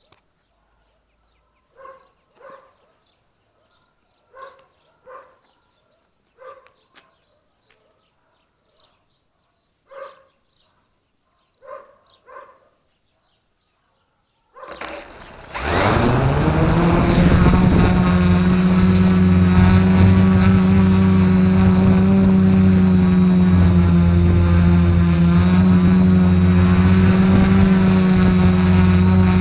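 Quiet with a few faint short sounds in pairs. About halfway through, an F450 quadcopter's four motors and propellers spin up and hold a loud, steady hum at idle.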